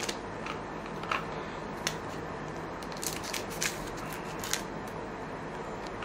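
Trading card pack being handled: scattered short crinkles and clicks of the foil wrapper and cards being opened and sorted, over a steady low hiss.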